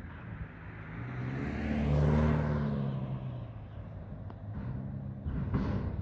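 Mack McNeilus front-loader garbage truck's diesel engine revving up and settling back down as it drives the hydraulic forks dumping a container into the hopper, loudest about two seconds in, with a short louder burst near the end.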